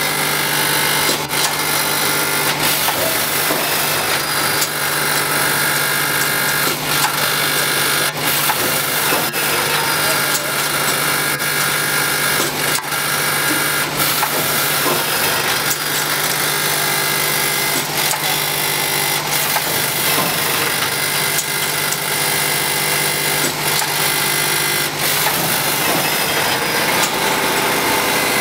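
Automatic coffee packaging machine with a vibratory bowl feeder running: a steady low hum under a constant rattle of small items and irregular sharp clicks and knocks from the mechanism. The hum weakens near the end.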